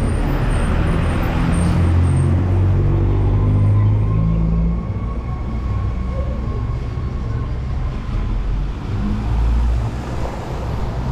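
Street traffic: a motor vehicle passes close by with a heavy low engine rumble that eases off about five seconds in. A thin steady whine sounds for a few seconds in the middle.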